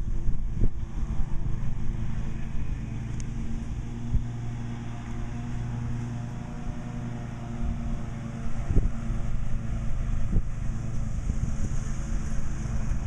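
A vehicle engine idling steadily, with a few short low thumps.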